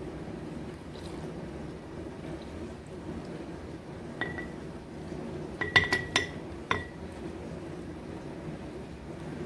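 Glass jar clinking as it is knocked: one clink about four seconds in, a quick cluster of clinks around six seconds, and one more just before seven, each leaving a brief ringing tone.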